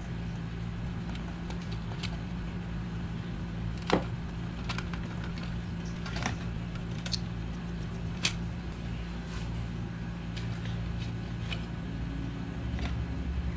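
Scattered clicks and taps of a screwdriver and metal parts being handled on a window air conditioner's sheet-metal control bracket, with one sharper click about four seconds in, over a steady low hum.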